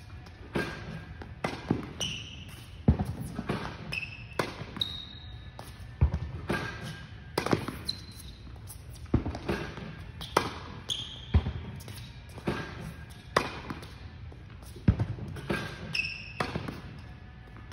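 Tennis volley drill on an indoor hard court: a sharp pock of ball on racket strings about once a second, mixed with ball bounces and a few short, high shoe squeaks on the court surface.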